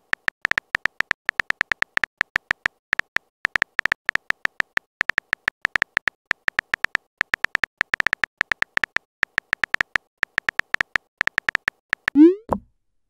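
Simulated phone keyboard tap sounds from a texting-story app, rapid and irregular, each a short high click, as a message is typed and partly deleted. Near the end the taps stop and a short rising whoosh follows as the message is sent.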